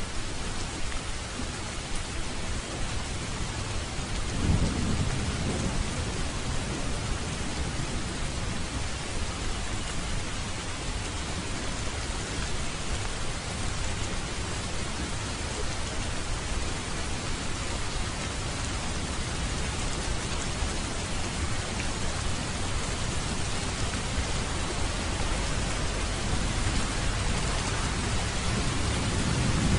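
Steady rain falling, with a low roll of thunder about four seconds in and another near the end.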